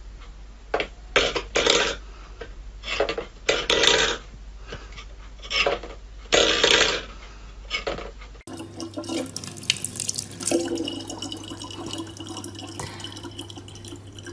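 A stainless-steel bowl knocked and scraped on a wooden floor in a string of short, irregular bursts. About eight seconds in it gives way to a thin stream of water trickling steadily into a plastic bottle.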